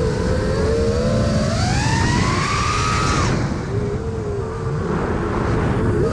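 Brushless motors and triblade props of a 5-inch FPV quadcopter whining, heard from the onboard GoPro. The whine climbs in pitch for about two seconds as throttle rises, drops away sharply just past the middle as throttle is cut and the quad rolls inverted, then starts climbing again near the end. Wind rushes across the microphone throughout.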